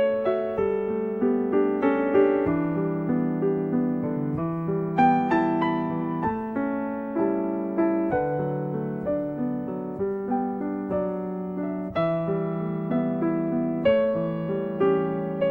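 Background piano music: a slow, gentle melody of single struck notes over held lower notes.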